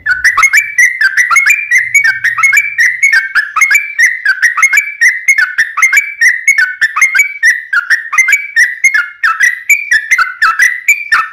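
Sooty-headed bulbul (trucuk) singing a long, unbroken run of quick notes that bounce up and down in pitch, several notes a second without a pause.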